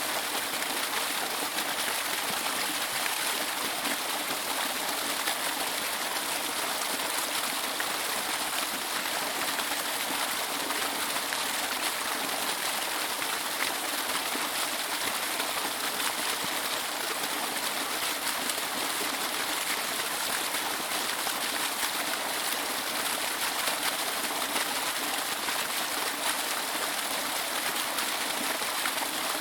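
Waterfall rushing: a steady, even hiss of falling water, bright and airy, that does not change.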